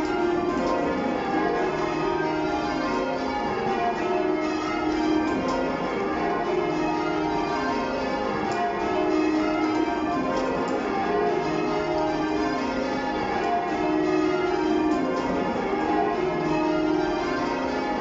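Change ringing on the minster's ring of church bells, cast in 2017 with a 21 cwt tenor in E♭: bells strike one after another in a continuous stream of rows that step down in pitch, heard from the ringing room below.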